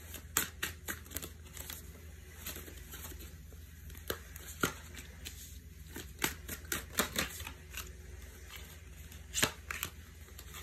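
Tarot cards being handled and dealt one by one onto a cloth: irregular clusters of short clicks and flicks from the card edges, over a faint steady low hum.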